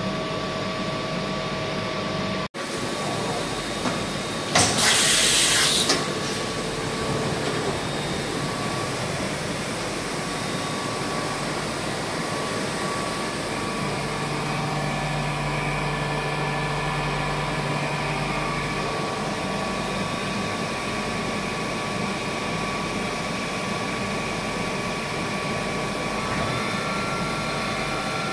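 2004 Matsuura H.Plus-405 horizontal machining center running: a steady hum with several held tones, broken about five seconds in by a loud hiss lasting just over a second. About halfway a lower hum strengthens, and more steady tones join near the end.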